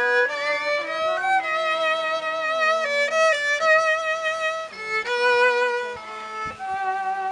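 Instrumental music carried by a violin melody of held notes with vibrato, some sliding between pitches.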